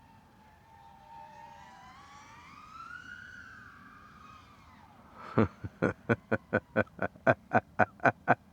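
FPV quadcopter motors and props whining, the pitch gliding up and then down with the throttle. After about five seconds comes a run of loud, short pulses, about three a second.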